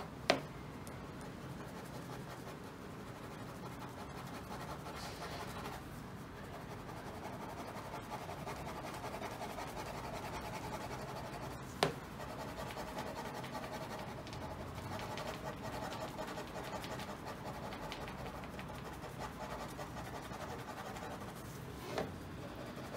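Ballpoint pen scratching on paper held on a clipboard, in quick back-and-forth shading strokes that build up a darker layer. Three sharp clicks stand out: near the start, about halfway, and near the end.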